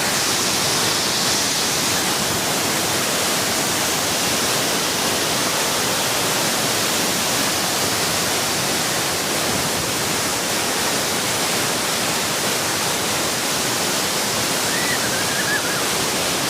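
Waterfall cascading: a steady, unbroken rush of falling water, with a few faint high chirps near the end.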